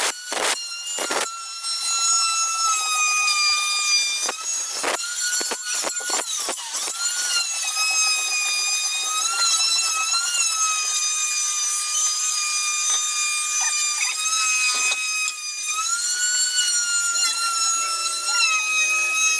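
An electric power tool's motor runs with a steady high whine, its pitch sagging and recovering a few times under load. Rasping handsaw strokes through timber sound over it in the first several seconds.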